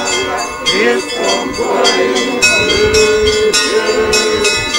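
Orthodox church bells ringing, several bells struck in quick succession so their ringing overlaps, with people's voices underneath.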